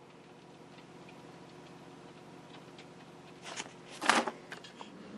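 Quiet workbench room tone with a faint steady hum, then a few light clicks and rustles about three and a half to four seconds in as things on the bench are handled.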